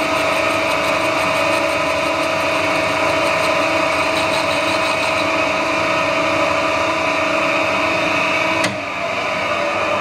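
Metal lathe running steadily with a constant whine of several tones while a carbide tool feeds along a UHMW plastic rod without coolant. A click comes near the end, after which the higher whine drops away and the sound goes slightly quieter.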